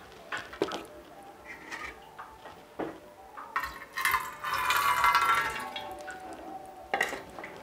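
Munyu, a traditional salt water drained through burnt bean-stalk ash, poured from a bowl into a metal cooking pot: a splashing pour for about two seconds in the middle. A few clinks and knocks of the tin and bowl against the pots come before and after it.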